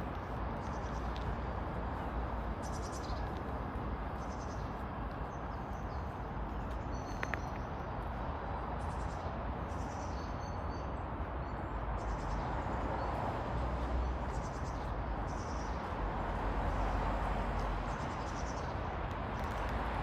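Wind buffeting the phone's microphone in a low steady rumble over outdoor background noise, with faint regular footsteps and a few short bird chirps.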